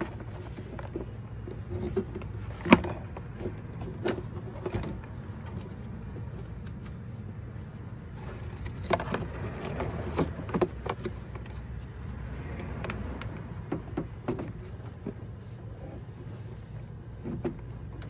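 Scattered plastic clicks and knocks as hands work wiring connectors and plastic door trim inside a truck's door panel, the sharpest a little under three seconds in, over a steady low hum.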